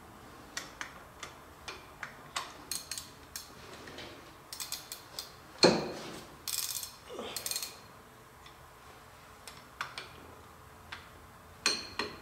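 Hand ratchet wrench clicking in short, irregular runs as bolts on a boring mill's spindle face are turned out, with one loud metal clank about five and a half seconds in and a few scraping handling noises after it.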